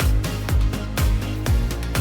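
Background music with a steady beat: a deep kick drum about twice a second under sustained synth tones.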